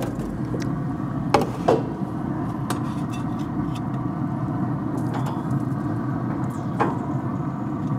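Steel grill tongs clinking against the grill grate and the metal pan as ribs are lifted and laid down: two clinks close together about a second and a half in, a lighter one soon after, and another near the end, over a steady low rushing noise.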